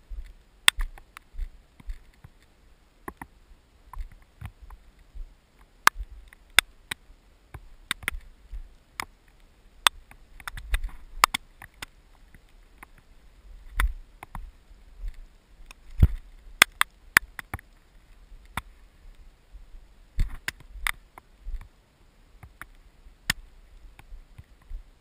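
Raindrops ticking on the camera housing: irregular sharp clicks, at times several in quick succession, with uneven low buffeting from wind on the microphone.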